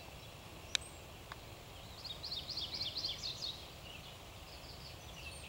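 Quiet outdoor ambience with a faint low hum. A small bird sings a quick run of about ten high chirps between two and three and a half seconds in, after a sharp click near the start.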